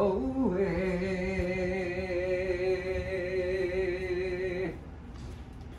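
A voice chanting a Hawaiian blessing chant (oli), dropping briefly in pitch and then holding one long, slightly wavering note that stops near the end.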